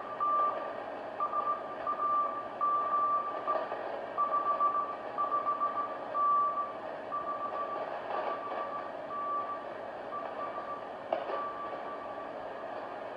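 Morse code (CW) signal on the 40 m band heard through a 1942 SOE Type 3 Mk II spy set's receiver: a single steady beat-note tone keyed in dots and dashes over constant receiver hiss. The signal grows fainter about halfway through.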